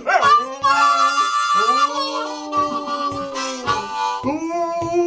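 Harmonica playing long held blues notes while a dog howls along in long drawn-out tones.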